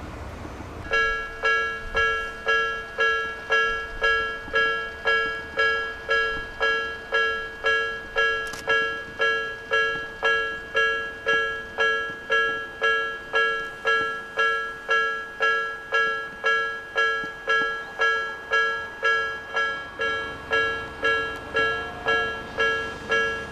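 Railway level crossing warning bell ringing: one bell-like tone struck about twice a second, each strike fading before the next, starting about a second in.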